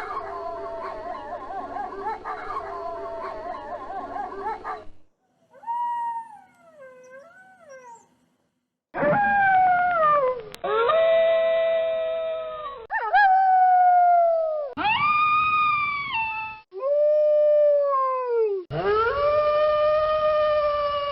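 Wolves howling: a chorus of overlapping howls for about five seconds, then a single quieter wavering howl, then a run of long howls one after another, each sliding down in pitch at its end.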